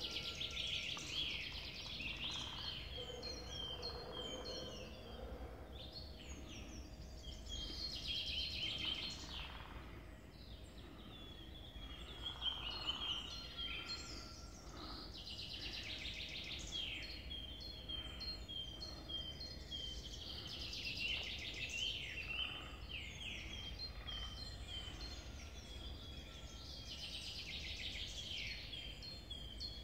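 Songbirds singing in a woodland dawn chorus, a clear song phrase every few seconds with fainter chirps between, over a low steady rumble.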